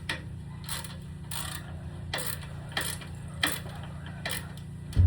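Hand tools working on a ladder: a string of short mechanical clicks and scrapes, one every half second to a second, like a ratchet being worked, with a heavy thump near the end.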